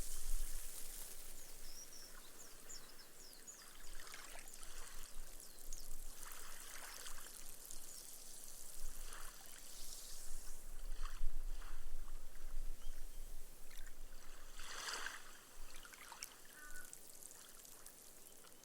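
Gentle ripples lapping on a sand beach: a soft wash fades in the first second, then the water sinks into the sand with a fizzing, crackling hiss of bursting foam and trickles, swelling and easing a few times.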